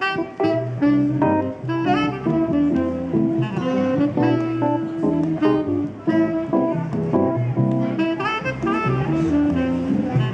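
Live jazz from a small band: a saxophone plays over a Kawai MP6 stage piano and an electric upright bass.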